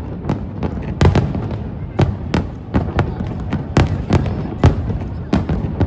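Fireworks show: a rapid, irregular run of shell bursts, several loud bangs a second, some crackling, over a continuous low rumble of echoing explosions.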